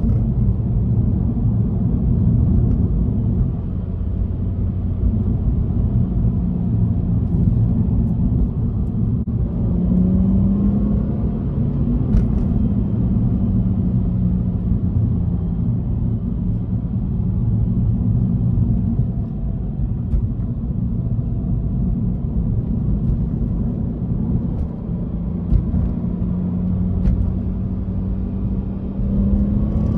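Subaru Legacy's EZ30R 3.0-litre flat-six heard from inside the cabin, held in second gear and engine braking downhill, over a steady rumble of road noise. The engine note rises about ten seconds in and again near the end.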